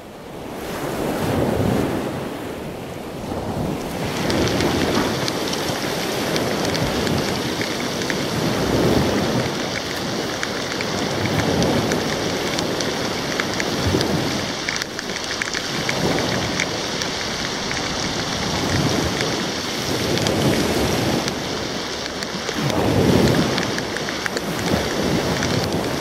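Heavy tropical rain pouring down, a continuous hiss with low rumbling swells every two or three seconds. A brighter hiss joins about four seconds in.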